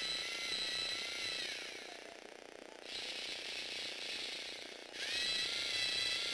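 Lego Mindstorms NXT motor driving a Technic gear train, a high gear whine. About two seconds in it slows and dies away. A quieter whir without the whine follows, and about five seconds in the motor spins back up with a rising whine and runs steadily.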